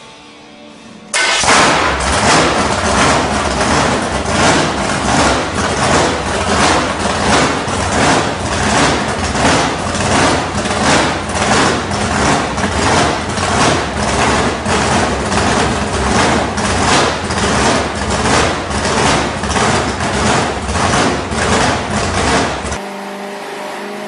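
An engine running with a slow, regular, lumpy pulse of about two beats a second. It starts about a second in and cuts off abruptly near the end.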